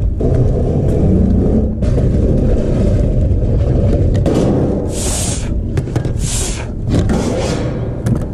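Steady wind rumble on the microphone, with short scraping and crinkling bursts from a galvanized sheet-metal flashing plate and flexible aluminium flue pipe being handled, three of them in the second half.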